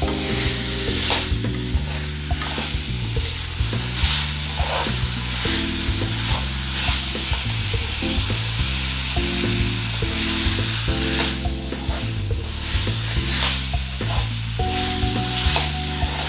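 Chicken pepper fry sizzling in oil in an aluminium kadai, stirred and scraped with a steel spatula, with irregular scraping clicks against the pan. The masala is frying down to a thick coating as the oil separates, the last stage of the dish. Low background music with chords changing every second or two plays underneath.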